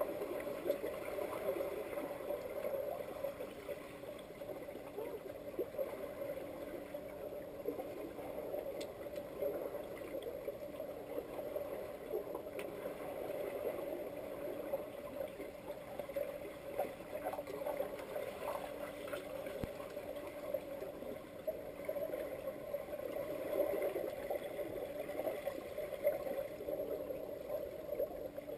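Muffled underwater pool ambience recorded from below the surface: a steady murky wash of water noise with scattered small clicks and knocks from the swimmers' movements.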